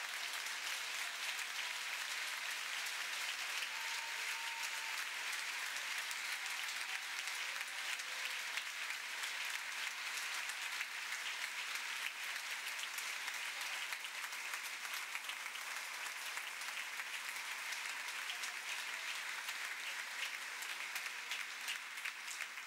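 A large congregation applauding steadily.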